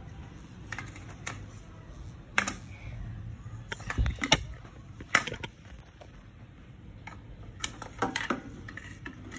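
Irregular clicks and knocks from handling an electric deep fryer's plug, cord and heating head: the plug pushed into a power strip socket, then the cord and the fryer head moved about. The loudest knocks come in the middle and again near the end.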